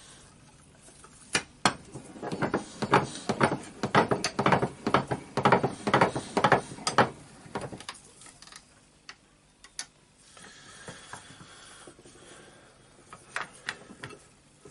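Metal parts and hand tools clicking and clattering against each other as the armature of a disassembled orbital sander is worked at. A fast, uneven run of clicks lasts about five seconds, followed by a few scattered ones.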